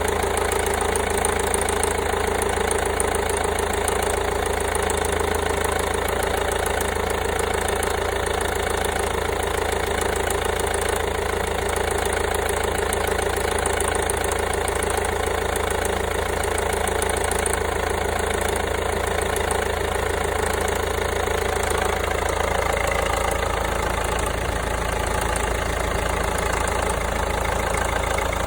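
Peugeot 5008's 1.5 HDi (DV5RC) four-cylinder diesel engine idling steadily.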